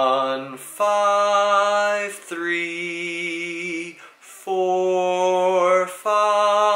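A man sings a slow solo bass line of held notes, one after another with short breaths between them. It is a drum corps style tuning progression on scale degrees 1–5–3–4–5–1, tonic to predominant to dominant and back.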